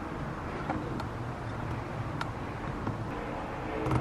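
Steady low outdoor background rumble with a few faint light clicks, and a brief louder rustle near the end.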